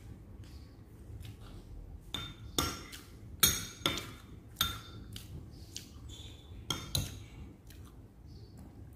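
Cutlery clinking against a plate during a meal: about seven sharp, briefly ringing clinks, bunched between about two and seven seconds in.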